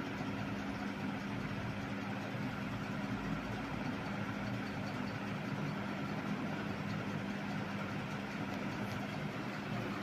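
Panasonic F-560Z2 56-inch industrial ceiling fan running fast: a steady motor hum over an even rushing noise.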